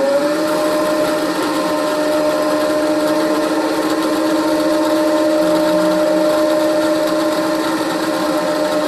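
Milling machine spindle motor running at a steady speed, a constant two-note hum that has just come up to speed at the start.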